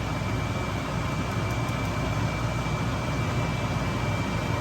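Steady mechanical hum and hiss, like a running fan, with a thin steady high whine over it.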